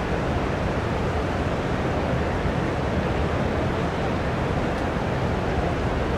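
Steady city ambience: an even, unbroken wash of traffic noise with no distinct sounds standing out.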